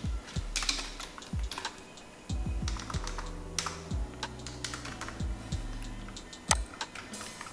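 Computer keyboard keys clicking in uneven bursts as text is typed, over soft background music with low held notes.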